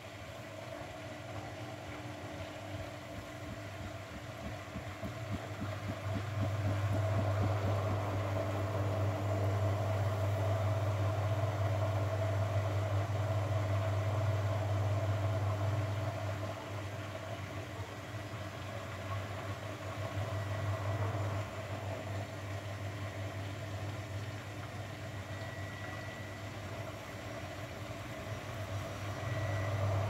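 Grundig GWM4762WE20 front-loading washing machine in the intermediate spin after the second rinse: a steady low motor hum with the drum turning. It grows louder about six seconds in and eases back about ten seconds later.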